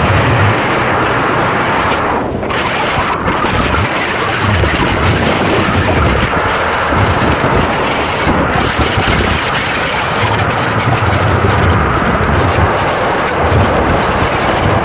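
Paramotor engine and propeller running steadily in flight, mixed with loud wind noise on the microphone that buffets unevenly in the low end.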